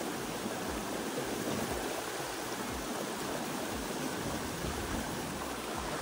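Steady rush of a shallow stream spilling over rocks in a small waterfall, with a few low bumps on the microphone.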